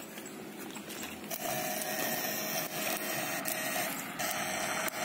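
Electrofishing rig buzzing with a steady tone and hiss while its pole electrodes are in the shallow water. It switches on about a second in, stops a little past three seconds, and comes on again about a second later.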